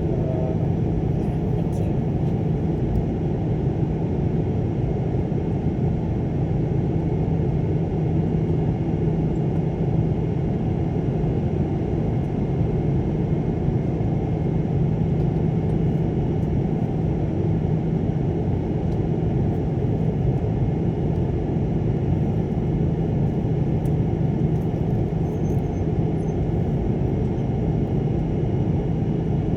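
Steady low rumble of a moving vehicle heard from inside its cabin, unchanging throughout.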